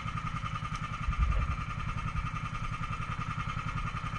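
Engine of a motorized fishing boat running steadily with a fast, even chug and a constant high whine. A brief low thump about a second in.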